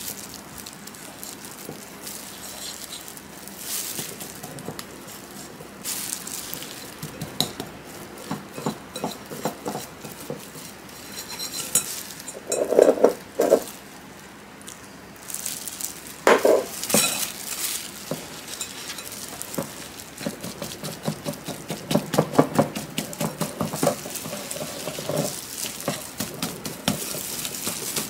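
Small wire whisk stirring a crumbly almond and oat flour mixture in a glass bowl, its wires ticking and scraping rapidly against the glass, with a few louder clinks about halfway through.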